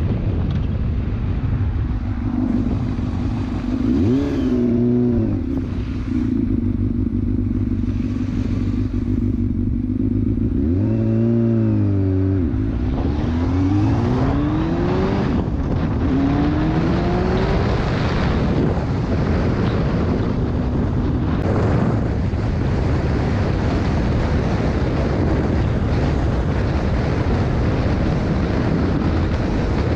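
Motorcycle engine idling with two brief revs. It then pulls away, rising in pitch through a few gear changes. At road speed it gives way to steady wind noise on the microphone.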